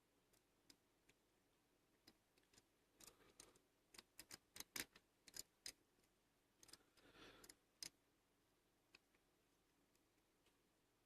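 Faint, scattered small metallic clicks of lock picks and a tension tool working in a Bi-Lock rim cylinder as the lock is reset and picking starts over, about a dozen clicks in the middle of otherwise near silence.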